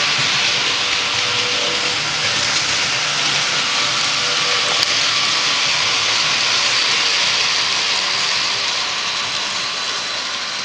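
Märklin model locomotive running on the layout: a steady rushing hiss with a faint high whine, easing slightly near the end.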